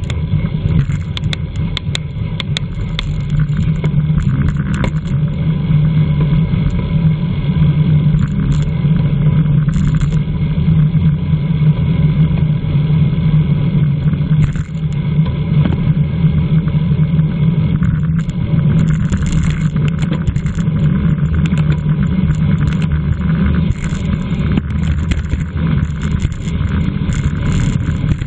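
Steady low rumble of wind buffeting the microphone of a camera riding on a racing bicycle, with a few sharp clicks in the first few seconds.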